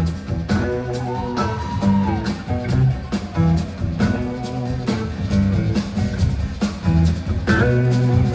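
Live blues-rock band playing: electric guitars over bass, keyboards and a steady drum beat. A held high lead note slides down about two seconds in. Heard from the audience.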